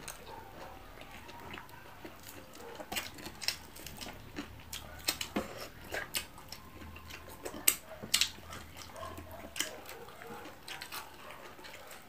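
Close-up eating sounds: chewing, lip smacks and wet mouth clicks, with fingers picking at fried tilapia and vegetables. They come as scattered short clicks at a low level.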